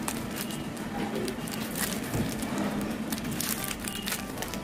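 Packaging crinkling and crackling in the hands as the hair-colour kit's inner packet of gloves and conditioner sachets is handled and opened, with many small irregular crackles.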